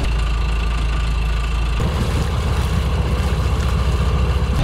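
Sailboat's engine running at low RPM in reverse, backing down to set the anchor; a steady low rumble that shifts about two seconds in.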